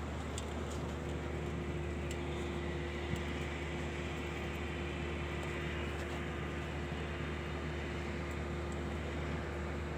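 Steady drone of machinery running on an airport apron beside a parked turboprop airliner: a constant low hum with a steady mid-pitched tone over an even rushing noise.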